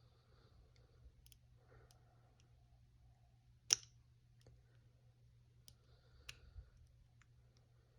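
Faint, scattered clicks of a steel hook pick working the spring-loaded security pins in the 5-pin core of a Master Lock Pro Series 6840 padlock under tension, with one sharper click about four seconds in. A low steady hum runs underneath.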